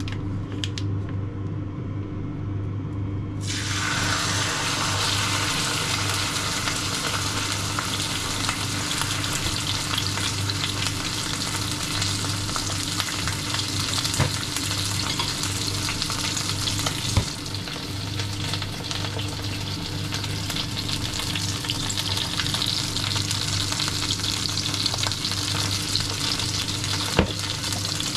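Food sizzling in a hot pan, starting suddenly about three and a half seconds in as it hits the heat, over a steady low hum, with a few light clicks.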